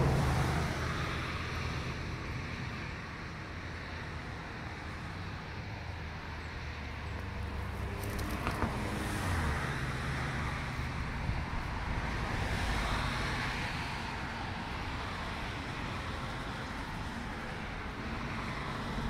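Steady low rumble of background noise, like road traffic, with no peacock call.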